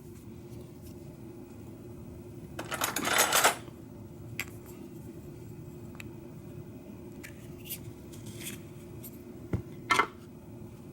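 Small metal lock parts clicking and clattering as a Schlage mortise cylinder is taken apart: one short rattling clatter about three seconds in, then scattered single light clicks, the sharpest two near the end.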